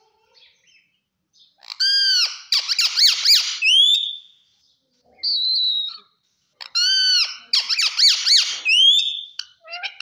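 Rose-ringed parakeet calling: the same harsh phrase twice, about five seconds apart. Each phrase is a few squawky notes ending in a rising whistle, and a short steady whistle comes between them.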